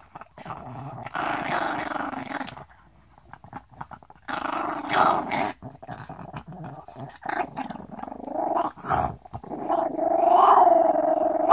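Chihuahua growling in repeated rough bouts a few seconds long with short pauses between them, guarding its bone. A sharp, loud burst comes right at the end.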